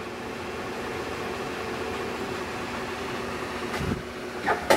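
Hardinge HLV-H toolroom lathe running under cross-slide power feed: a steady hum from the spindle and feed drive. Near the end there are a few brief knocks as a control lever is worked.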